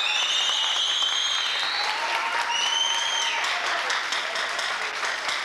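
Audience applauding and cheering, with shrill high calls rising over the clapping twice in the first three seconds.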